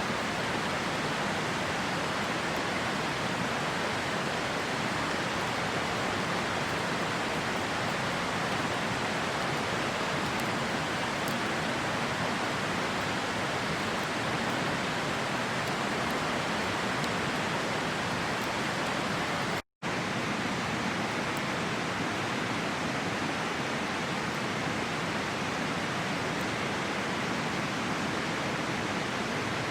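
A river rushing steadily beside a campfire, with a few faint crackles from the fire. The sound cuts out for an instant about two-thirds of the way through.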